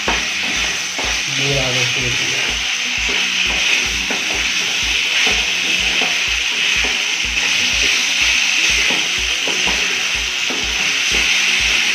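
Macaroni pasta with vegetables and sauce sizzling in a hot non-stick kadhai, stirred with a wooden spatula that scrapes and knocks against the pan over a steady frying hiss.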